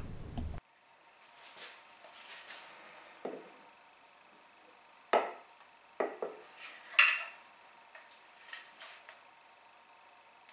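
A metal digital angle finder being handled and set against hardwood boards on a workbench: about four light, sharp clicks and knocks spread over a few seconds, with faint rustling in between.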